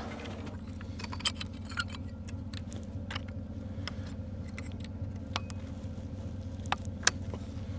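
Scattered light clicks and taps from handling skis and their clip-on bindings, over a steady low hum of an idling vehicle.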